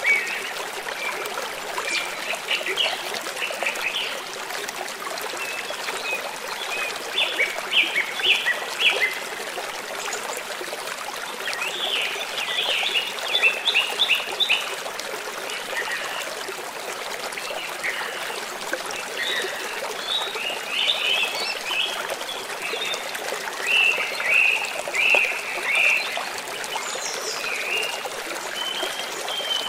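Steady flow of a river or stream, with songbirds chirping over it in several short bursts of rapid calls.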